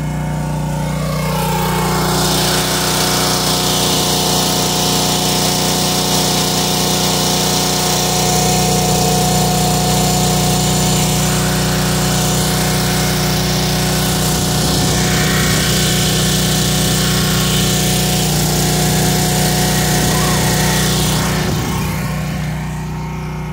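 Gas engine of a trailer-mounted pressure washer running steadily at full speed, with a strong hiss that comes in about two seconds in and drops away near the end.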